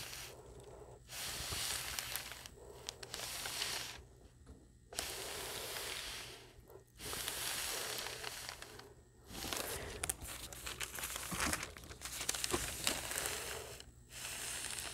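An Oliso iron pushed back and forth over parchment paper on quilt fabric, the paper crinkling and swishing with each stroke, in about seven strokes of a second or two each, while the backing is fused with fusible basting powder.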